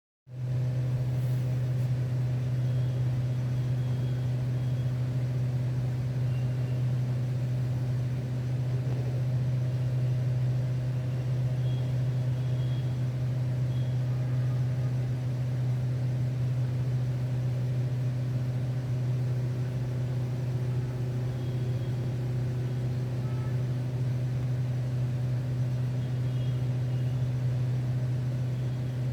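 Steady, unchanging low hum of a small electric motor.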